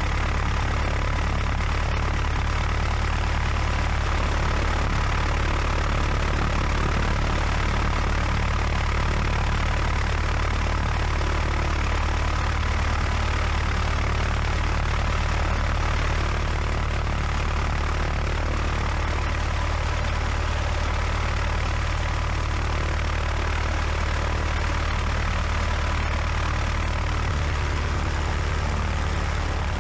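A Cessna 150's four-cylinder Continental O-200 engine and propeller running steadily at low power, heard close up from outside the aircraft.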